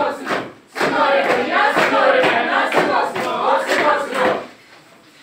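A group of voices chanting or shouting together in unison, with sharp rhythmic beats about twice a second. It stops suddenly about four and a half seconds in.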